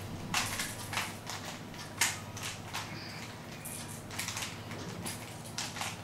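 A plastic 3x3 Rubik's Cube being scrambled by hand: its layers twisted quickly, giving an irregular run of clacks and rattles, the sharpest about two seconds in.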